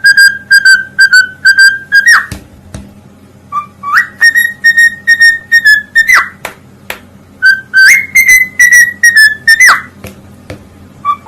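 Loud whistling in three phrases, each a run of quick repeated notes that ends in a sharp swoop up and then down in pitch.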